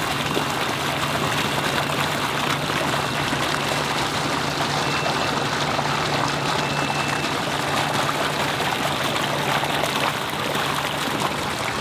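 Heavy stream of water carrying live shiners gushing out of a large PVC pipe and splashing into a bait tank: a steady, even rush of pouring water over a faint low hum.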